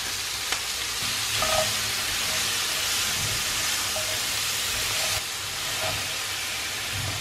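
Diced bell peppers and onion sizzling as they sauté in a hot frying pan, a steady frying hiss, while a silicone spatula stirs them with a few light scrapes and taps.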